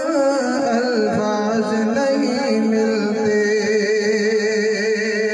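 A man singing a devotional Urdu kalam (naat) solo into a microphone, moving between notes and then holding one long wavering note from about two seconds in.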